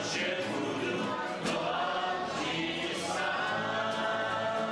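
A group of people singing a song together, accompanied by two strummed acoustic guitars.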